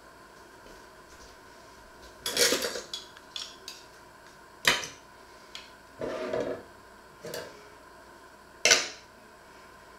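Metal cutlery clinking and clattering against a china plate and a metal baking tray: a cluster of clatters a couple of seconds in, a sharp clink about halfway, a short scrape around six seconds, and a last sharp clink near the end.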